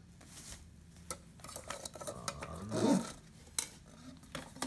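Nonstick camping pots and lids being handled and unpacked: a few light clinks and taps of the cookware against each other, with plastic wrapping rustling in between.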